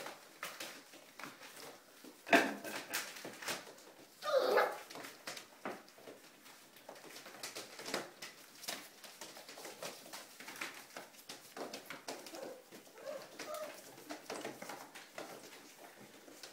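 Five-week-old Hungarian Vizsla puppies scuffling over newspaper and eating from shared bowls: many small clicks and rustles, with a sharp knock about two seconds in and a brief puppy cry a couple of seconds later.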